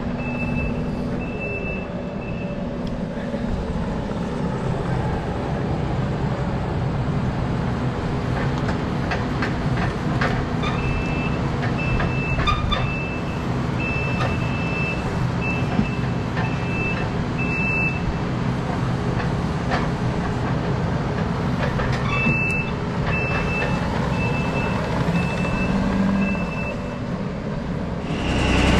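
Compact track loader's diesel engine running steadily as it works, its reversing alarm beeping in an even series of high beeps three times: at the start, through the middle, and again near the end. A few knocks sound around the middle.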